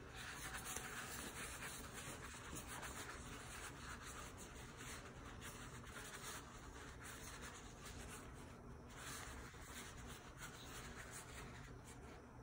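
Faint, continuous rustling and rubbing close to the microphone, from a toilet paper roll handled beside the phone.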